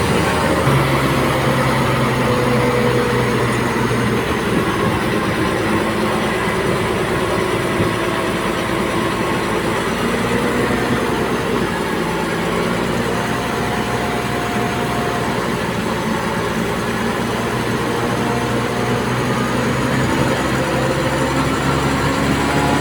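Komatsu D58P bulldozer's diesel engine running steadily as the machine works, its pitch drifting slightly up and down.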